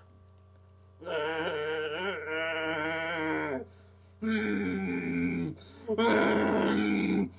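A man's voice letting out three long, wavering wails of anguish, the first starting about a second in and running longest.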